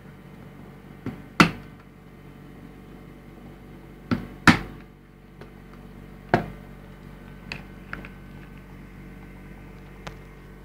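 Several sharp knocks and clacks, as of the lid and parts of a small homemade incubator box being handled, over a steady low hum. The loudest knocks come in two pairs, about a second and a half in and about four and a half seconds in, then one more near the middle and a few lighter taps later.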